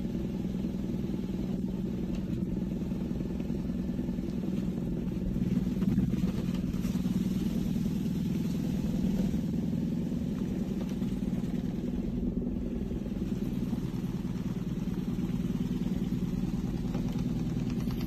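SOMODE vibration plate exercise machine running with a person standing on it: a steady low motor hum.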